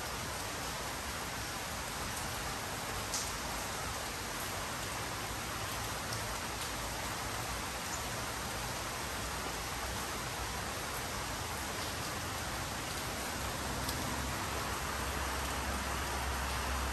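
Steady rainfall, an even hiss of rain on surfaces, with one louder drip about three seconds in. A low rumble builds near the end.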